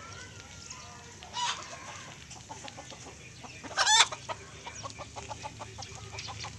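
Chickens clucking with short repeated calls, and one loud, short squawk about four seconds in.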